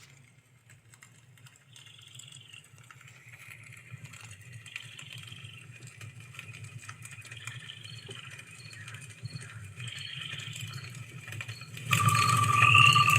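Music from an mp3 played through a TPA3116D2 class-D amplifier and loudspeakers, heard in the room. It fades in quietly, with a low steady rumble under a high warbling figure that repeats every couple of seconds and short high pips. It turns much louder about twelve seconds in, with a held mid-high tone and gliding notes above it.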